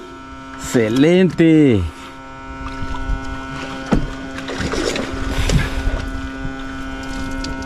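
A boat's outboard motor running at a steady speed, a constant drone with a wash of noise over it, and a single knock about four seconds in.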